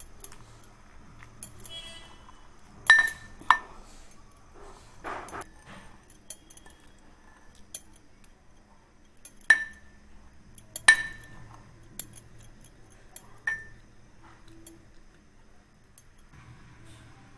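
A metal muddler crushing orange pulp, mint, lemon and sugar in a glass tumbler: soft squishing with about five sharp, ringing clinks of metal on glass, two near the start, two in the middle and one later on.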